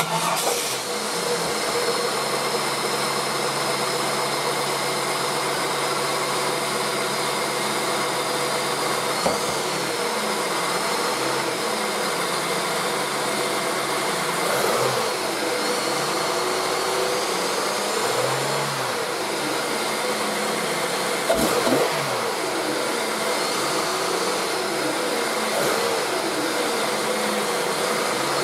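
Holden Commodore VX car engine with its stock air filter and intake, starting right at the beginning and then idling steadily. The throttle is blipped briefly a few times, about four or five short rises in revs spread through the idle.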